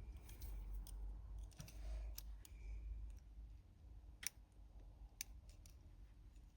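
Light metallic clicking of a lock pick and tension wrench working the pins of a challenge lock held in the hand. The clicks are scattered, with two sharper ones a little under a second apart past the middle, over faint handling rumble.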